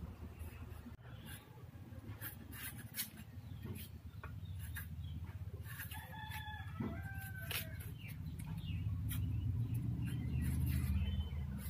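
Repeated soft scrapes and clicks of ginger being peeled against a boti's iron blade, over a steady low hum. About halfway through, a chicken calls briefly in the background.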